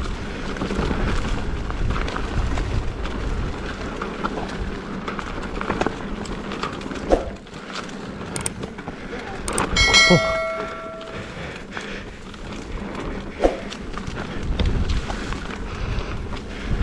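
Mountain bike riding down a rutted, technical downhill trail: a steady rumble of tyres on dirt, with scattered knocks and rattles from the bike over the ruts. About ten seconds in, a sharp metallic clang rings on for about a second.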